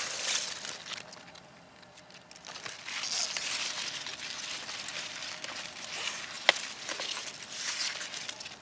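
Bell pepper plant leaves and stems rustling as they are handled, in swells, with one sharp snap about six and a half seconds in.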